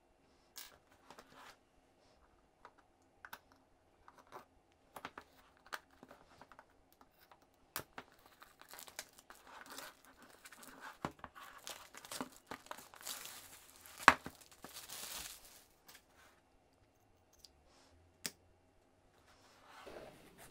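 Plastic shrink wrap on a cardboard kit box being slit with a hobby knife and torn off, crinkling and rustling, with scattered light clicks and taps. The crinkling is densest in the middle, with one sharp snap about two-thirds through.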